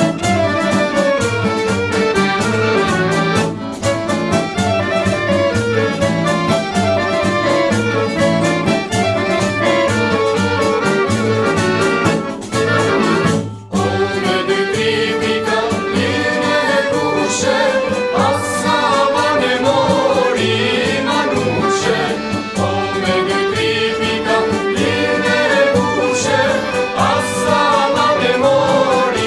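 Albanian folk band of violin, accordion, guitar, clarinet and frame drum playing a song with a steady beat while a woman sings. The music drops out briefly about halfway, then carries on with the singing more prominent.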